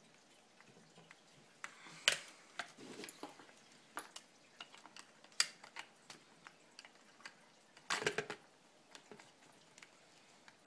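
Light, scattered clicks and taps of hand tools and small screws against a Traxxas RC car's plastic transmission parts while a screw that didn't come out all the way is worked free, with a louder clatter about two seconds in and a brief cluster around eight seconds.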